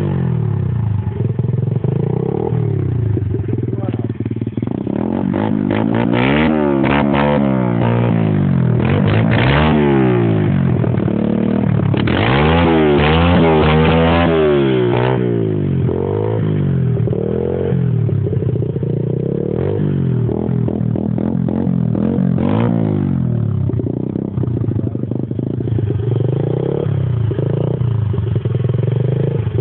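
A warmed-up pit bike's single-cylinder four-stroke engine idling, then blipped through a quick series of revs in the middle, each rising and falling back, with a few more blips later before it settles back to idle.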